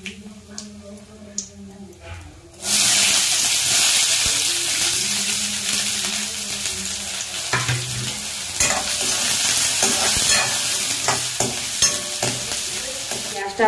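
Chopped onions hitting hot oil in a kadhai, where dried red chillies are already frying. A loud, steady sizzle starts suddenly about three seconds in and keeps going. From the middle on, a metal spatula stirs the onions and scrapes the pan a few times.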